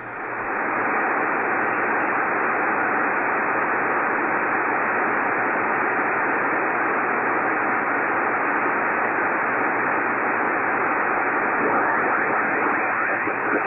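Steady hiss of band noise from a Yaesu FT-1000MP Mark-V HF transceiver on 75-metre lower sideband, with no station transmitting; the hiss is thin and cut off sharply above the voice range. About twelve seconds in the main tuning dial is turned, and a faint warbling signal slides through the noise.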